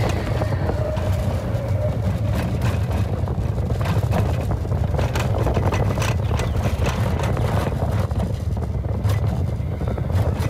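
Expedition Everest roller coaster train running fast along its track: a steady low rumble with frequent short clacks from the wheels on the rails.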